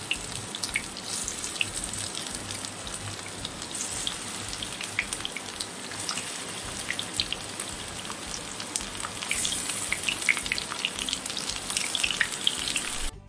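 Spice-marinated chicken pieces deep-frying in hot oil: a steady sizzle full of small, rapid crackles and pops. It stops abruptly just before the end.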